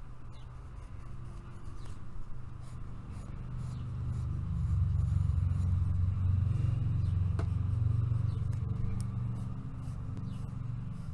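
Coloured pencil scratching over paper in shading strokes. A low rumble swells from about four seconds in and fades toward the end.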